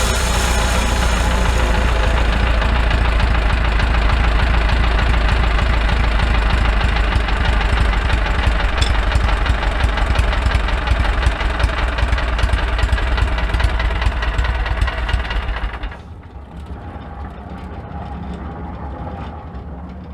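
Homemade sawmill running with a steady engine rumble while sawing a small log. About sixteen seconds in, the sound drops sharply and carries on much quieter.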